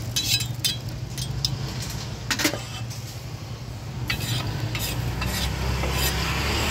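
Kitchen utensils knocking and scraping at irregular intervals: a cleaver on a wooden chopping block and metal against a small steel pan. A low steady hum runs underneath.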